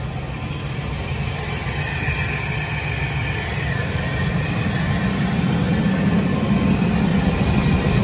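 GMC Savana van engine idling steadily, running after a crank-but-no-start fault caused by a bad ignition control module, growing slightly louder toward the end.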